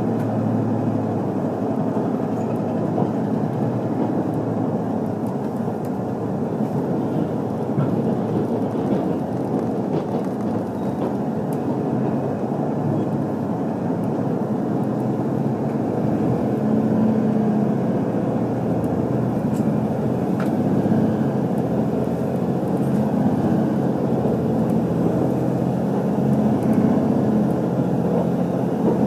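Cabin running noise of an HC85-series hybrid diesel train under way: a steady rumble of wheels on rail mixed with the hum of the diesel engine-generator, which grows a little louder in the second half.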